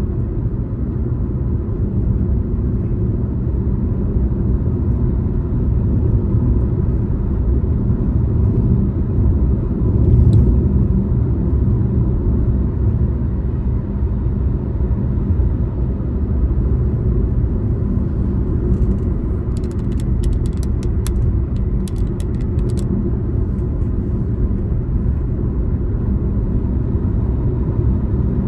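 Steady low rumble of a car driving along a road, engine and tyre noise together, with a short run of light clicks or rattles about twenty seconds in.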